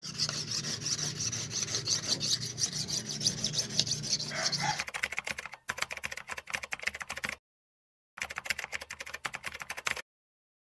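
A blade being sharpened by hand: quick back-and-forth scraping strokes for about five seconds. Then a rapid clicking, like typewriter keys, in two runs with a short gap between them, stopping shortly before the end.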